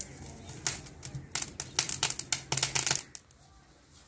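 Wood fire crackling in a clay tandoor as it is poked with a stick: a quick, irregular run of sharp cracks that stops about three seconds in.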